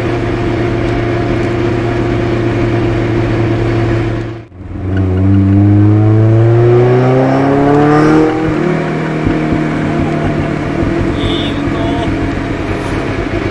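Exhaust note of a bored-up Eunos (NA) Roadster four-cylinder with individual throttle bodies, through a Car's CP1 muffler, heard from a microphone near the rear number plate. It cruises steadily, drops out briefly about four seconds in, then the revs climb for about three seconds before a gear change drops the pitch to a lower steady drone.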